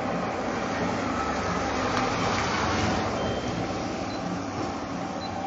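Steady noise of road traffic, swelling a little as a vehicle passes about two seconds in.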